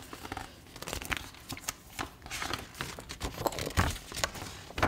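Paper being handled, with irregular rustles and small crackles.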